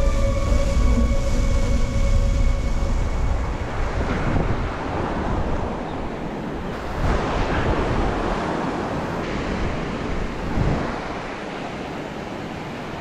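Ocean surf breaking and washing up a sandy beach, with wind on the microphone; music fades out over the first few seconds.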